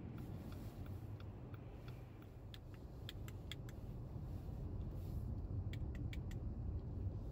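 Low engine and road rumble inside a car's cabin, with a run of light, evenly spaced ticks, about two or three a second, like a turn-signal indicator as the car turns in. Later come a few sharper, irregular clicks and rattles.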